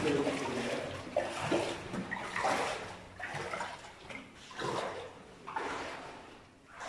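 Footsteps splashing through shallow water on a tunnel floor, a run of uneven steps that slows toward the end.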